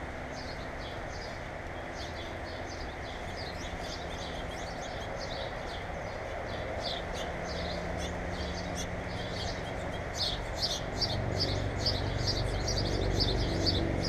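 Small birds chirping over and over, the chirps coming thicker and louder in the second half, over a low steady hum that swells from about ten seconds in.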